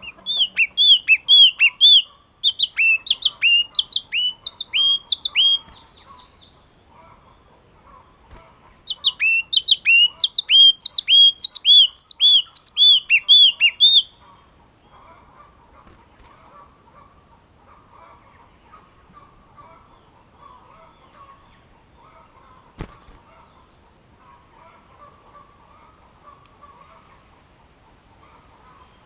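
A yellow-cheeked tit sings two bouts of rapid, repeated, down-slurred whistled notes, each about five seconds long, in the first half. Afterwards only a faint background hum remains, with a single sharp click about two-thirds of the way in.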